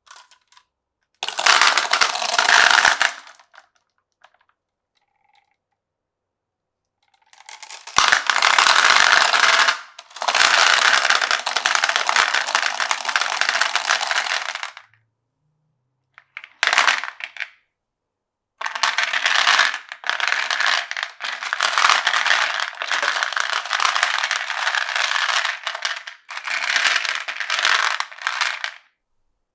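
Glass marbles rolling and clattering along a wooden marble run, in several spells of a few seconds each with complete silence between them; the longest runs from about 18 s almost to the end.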